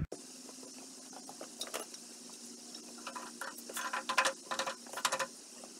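Short knocks and scrapes of a Jacobs New Victor No. 817X cast-iron cook stove being handled and tipped over on a concrete floor. The clatters come in a cluster, thickest and loudest in the second half, over a faint steady hum.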